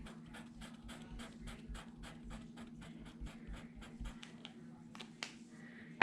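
A quick run of light ticks and taps, about four or five a second, from hands handling small paper and wood scrapbook embellishments on a desk. The ticks stop about four and a half seconds in.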